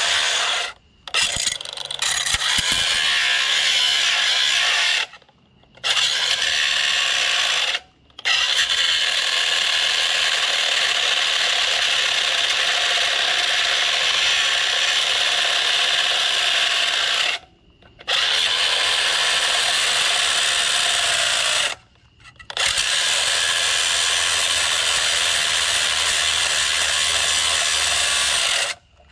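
Small battery-powered grinder running at speed as it cuts through scrap, switched off and on again in five short pauses.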